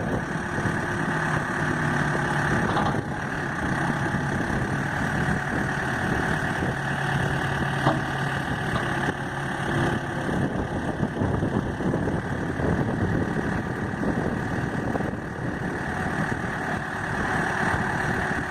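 New Holland LB75B loader backhoe's diesel engine idling steadily.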